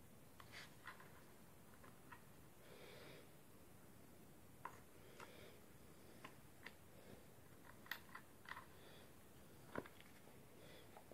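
Faint, scattered clicks and light taps of a cordless SDS drill's plastic housing halves being handled and pressed together, about a dozen irregular knocks with a brief soft rustle about three seconds in.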